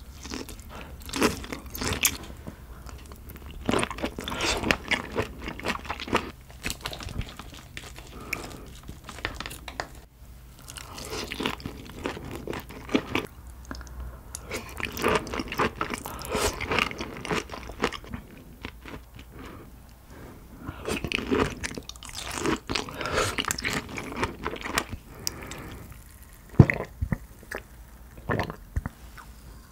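Close-miked chewing of raw crayfish (spiny lobster) sashimi: crunchy, chewy bites that come in bursts of a few seconds, over several mouthfuls. Near the end come a few separate sharp sounds as a small glass is drunk from.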